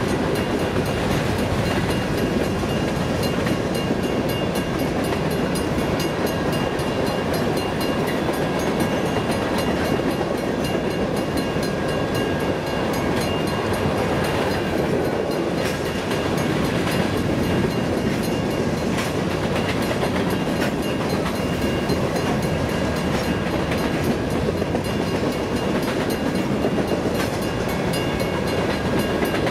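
Covered hopper cars of a freight train rolling past: a steady rumble and clatter of steel wheels on the rail joints.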